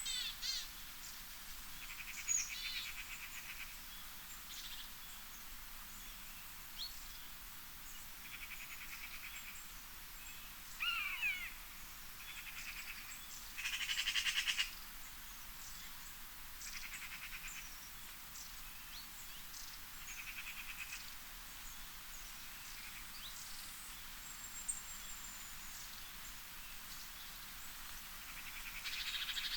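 Natural ambience of several birds chirping and calling, with short rapid pulsed trills about a second long repeating every few seconds, over a steady faint hiss. The loudest trill comes about halfway through.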